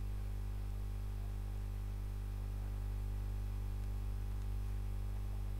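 Steady low electrical hum with a faint hiss underneath and nothing else: mains hum in the recording.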